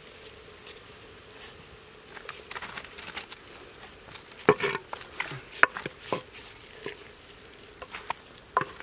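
A clay pot of boiling soup being stirred with a wooden spoon, the spoon clacking sharply against the pot several times in the second half. An insect buzzes steadily in the first half.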